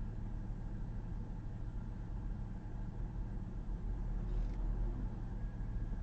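A car running, a steady low rumble with no distinct events.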